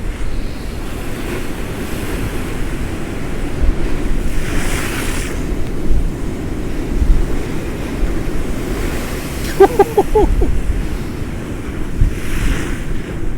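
Storm surf breaking against a sea wall, with strong wind buffeting the microphone in a steady low rumble. The surf surges with a hiss twice, about five seconds in and near the end. About two-thirds through comes a brief run of short pitched calls.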